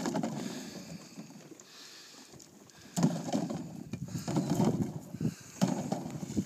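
Water splashing and sloshing as people wade through shallow floodwater in waders, in irregular bursts that pick up about three seconds in, with a few light knocks as duck decoys go into a small boat.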